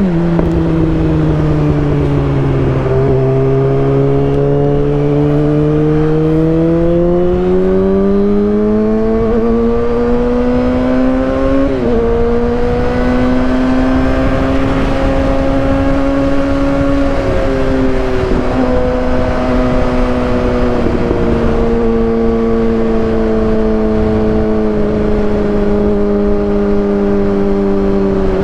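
2015 Kawasaki ZX-6R 636's inline-four engine through a Racefit aftermarket exhaust, running steadily under way. Its pitch sinks over the first few seconds, climbs smoothly from about six to twelve seconds, then holds, with short dips around twelve, eighteen and twenty-one seconds.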